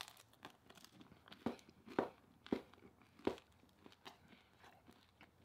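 Close-miked chewing of a mouthful of food: short moist clicks and crunches, four stronger ones roughly half a second apart in the first half, softer ones after.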